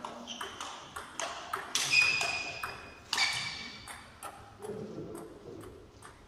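Table tennis rally: the ball clicking against paddles and table at an uneven pace, with a hollow echo of a large hall. The loudest hits, about two and three seconds in, ring briefly, and the clicks thin out after about four seconds as the point ends.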